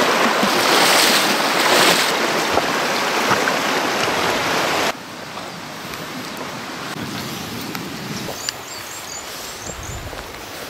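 Shallow, fast river rushing and splashing around a person's legs as he wades across. About five seconds in it cuts off suddenly to a much quieter outdoor hush with a few faint high chirps.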